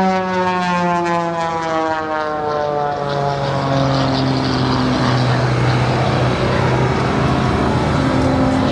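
Large aircraft flying past low and slow, its engine drone falling steadily in pitch over the first three seconds as it goes by, then holding a steady lower drone.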